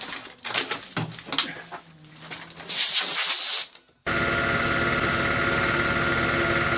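An air compressor starts abruptly about four seconds in and runs loud and steady with a motor hum, cutting off at the end. Just before it comes a short sharp hiss of compressed air, after a few handling clicks.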